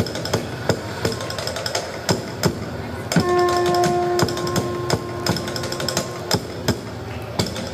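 Folk string group of guitars playing a rhythmic strummed accompaniment, the sharp strums falling regularly about three times a second. A held note joins about three seconds in and lasts about three seconds.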